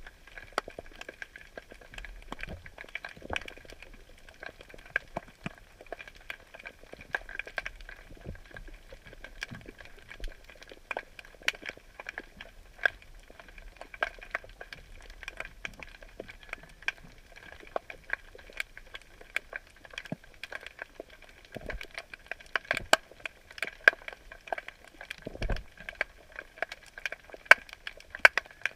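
Underwater crackling heard by a submerged camera: a dense, irregular stream of sharp clicks over a faint steady high whine, with a couple of dull thumps in the second half.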